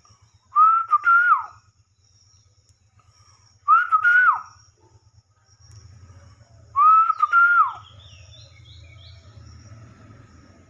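Indian ringneck parakeet whistling the same short phrase three times, about three seconds apart, each a held note that drops away at the end. A few faint chirps follow near the end.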